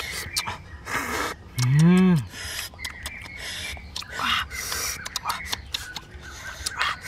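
A person's short wordless vocal sound, a single 'mmm'-like tone that rises and falls about two seconds in, amid irregular small clicks and cracks.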